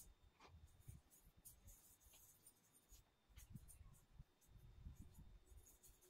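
Very faint scratching and rustling of fingers trickling white kolam powder onto a rough cement floor, in short irregular strokes.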